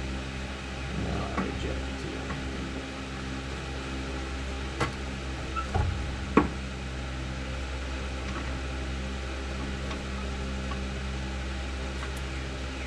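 A steady low hum with several even tones, with a few light metallic clicks and knocks in the first half, the loudest just after six seconds in. The clicks come from a hydraulic floor jack being worked to raise the rear suspension knuckle.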